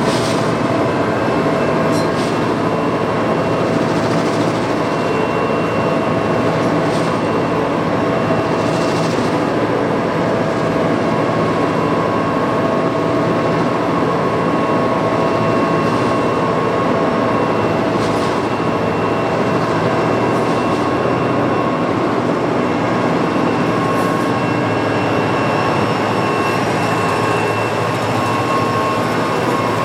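Diesel locomotives of a grain train, led by GM 42103, running steadily: a continuous engine drone with several held whining tones and a few faint clicks.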